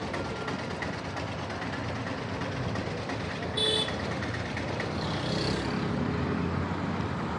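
Road traffic ambience: a steady hum of passing vehicles, with one short horn toot about halfway through and the traffic growing a little louder just after it.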